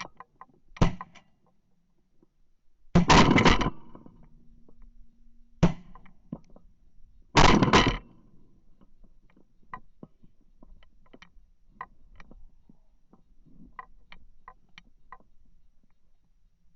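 A few sharp bangs: one about a second in, a quick cluster around three seconds, one near six seconds and a double near eight, with faint scattered clicks between them.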